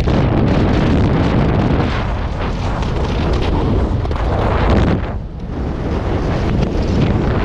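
Loud wind buffeting the camera microphone, a dense rumbling noise that dips briefly about five seconds in.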